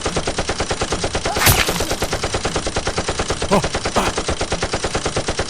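Machine-gun fire sound effect: a steady, rapid rattle of about ten shots a second, with a louder shot about a second and a half in.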